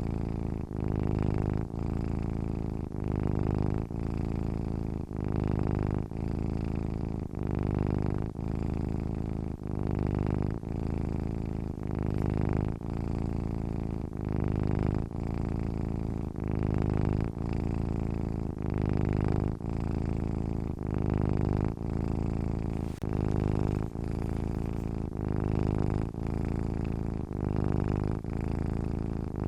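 A sleeping domestic cat purring close up. The low, rumbling purr runs continuously, swelling and dipping in an even rhythm of about one cycle a second as the cat breathes in and out.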